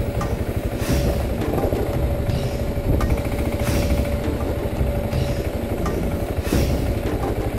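Single-cylinder engine of a BMW G650 enduro motorcycle running with a rapid, steady thudding pulse as the bike rides over a rocky track, with occasional sharp knocks.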